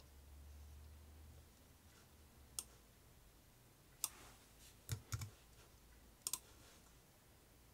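A quiet room with about seven short, sharp clicks from a computer mouse and keyboard, some single and some in quick pairs. A faint low hum sits under the first second and a half.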